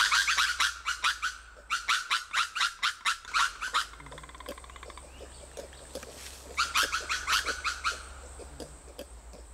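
Ring-tailed lemurs giving alarm calls: three runs of quick, sharp yapping barks, about eight a second, with short pauses between the runs. This is the warning call that tells the rest of the group something alarming has been seen.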